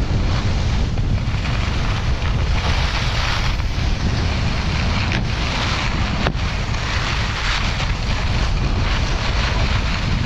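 Wind buffeting the action camera's microphone during a downhill ski run, a steady low rumble, with the hiss of skis sliding over packed, groomed snow swelling and fading with the turns.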